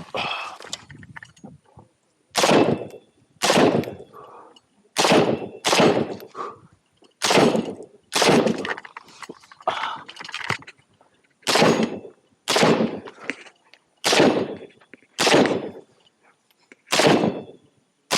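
Single gunshots from a competitor's firearm, about a dozen, fired one at a time at an uneven pace roughly a second apart. Each shot has a short echo.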